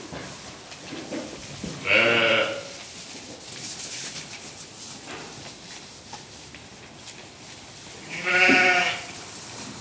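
Sheep bleating twice, about six seconds apart. Each call is loud and lasts under a second: the first comes about two seconds in, the second near the end.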